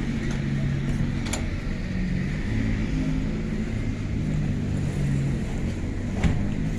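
Boat engine running steadily, with a low hum under a rush of wind and water; a short click about a second in.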